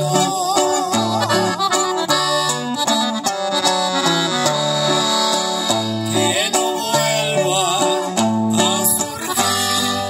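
Live norteño-style music: a button accordion plays the melody over strummed guitar and a line of low notes in a steady rhythm.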